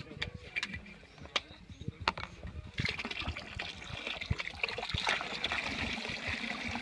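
Fruit juice from a carton and gin from a bottle pouring in thin streams into a plastic bucket of punch: a steady trickling hiss that starts about three seconds in. It is preceded by a few light knocks.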